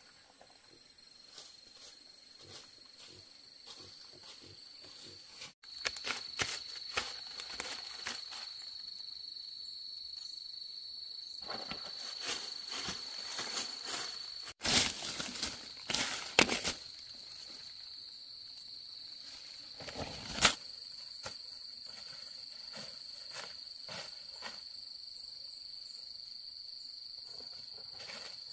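Insects trilling steadily at one high pitch, with scattered knocks and clicks from handling or footsteps and one sharper knock about two-thirds of the way through. The trill breaks off abruptly twice.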